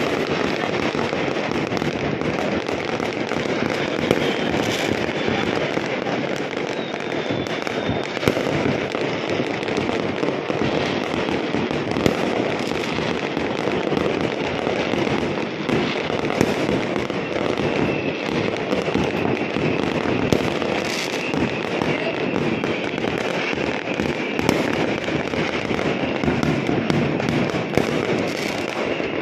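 Many fireworks bursting at once: a dense, unbroken crackling and popping, with a louder bang standing out every few seconds.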